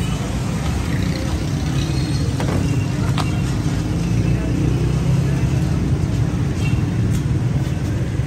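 Steady low rumble of street traffic and engines, with a few light clicks.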